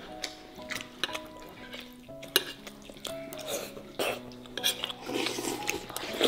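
A fork clicking and scraping against a plate while eating, with one sharper clink about two and a half seconds in, over light background music.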